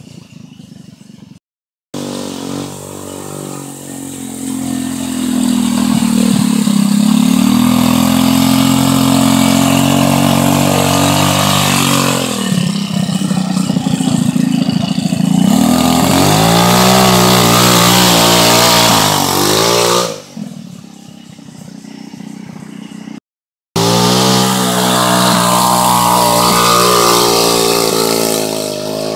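GY6 150cc single-cylinder four-stroke engine of an off-road go-kart buggy revving as the buggy drives over a dirt trail, its pitch rising and falling with the throttle. The sound breaks off suddenly twice and resumes.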